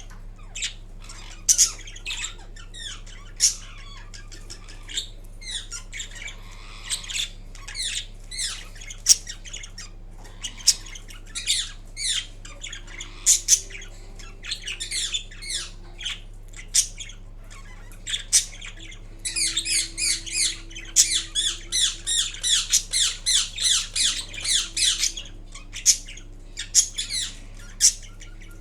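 Green Indian ringneck parakeet making a string of short, varied squawks and chirps while napping, with a fast run of rapid chattering calls about two-thirds of the way through.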